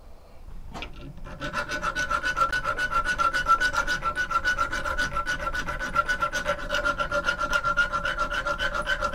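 Steel hand file rasping across the head of a steel bolt in rapid, even back-and-forth strokes that start about a second in, with a steady metallic ringing through them. The bolt head is being filed into a taper so it will push into the stepped receiver of an old air rifle.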